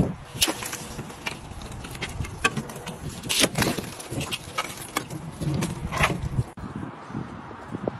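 Thin ice on a frozen swimming pool being broken up with a long pole: repeated sharp cracks and the tinkle of ice shards skittering across the surface, with the loudest cracks about three and a half and six seconds in.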